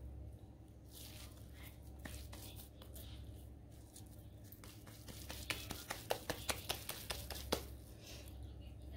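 Hands shaping soft chicken and chana dal kebab mixture into patties. About halfway through comes a run of quick, sharp pats, several a second, over a low steady hum.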